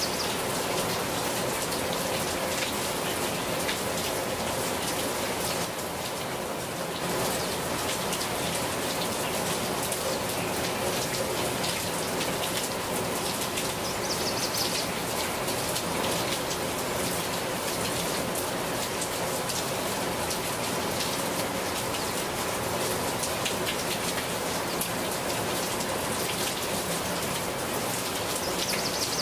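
Steady rain, with many single drops ticking close by.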